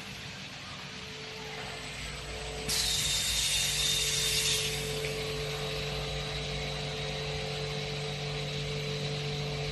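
CNC glass cutting machine running with a steady hum and whine, and a burst of loud hissing lasting about two seconds, starting about three seconds in.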